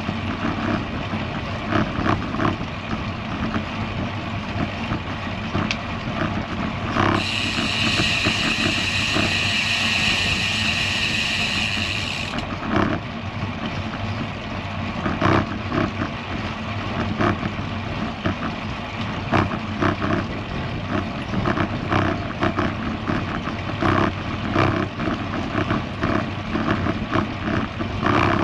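Wind rushing over the microphone and the tyres of a road bike rolling on the bridge deck, with short knocks as the wheels cross the joints in the deck. About seven seconds in, a high, steady buzz starts and cuts off sharply about five seconds later: the rear hub's freewheel ratcheting while the rider coasts.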